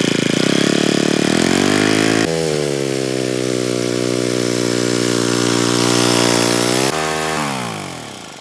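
Briggs & Stratton small gas engine on a vintage Lawn Chief rototiller, running just after starting. It speeds up over the first two seconds, runs steady, then slows and winds down near the end.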